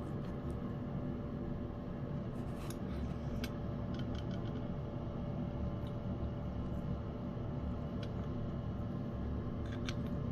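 A cat eating wet food in gravy: scattered small wet clicks of chewing and licking over a steady low hum.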